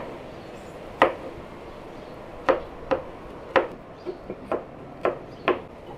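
About ten sharp, irregular knocks on a hard surface, some single and some in quick pairs, over a steady low background.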